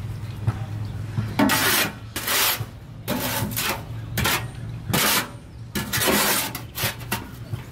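A long-handled tool scraping and stirring material in a wheelbarrow: a series of uneven scraping strokes, each under a second, starting about a second and a half in.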